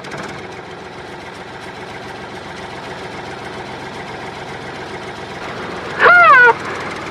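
Tractor engine running steadily. About six seconds in comes a short, loud call that rises and then falls in pitch.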